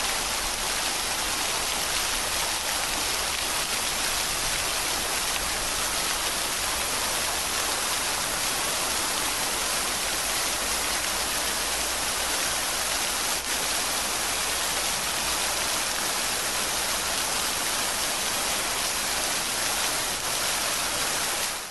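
Steady rain falling, an even unbroken hiss that fades out at the very end.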